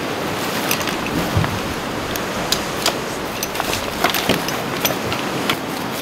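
Steady rush of sea surf and wind, with a few light clicks scattered through it.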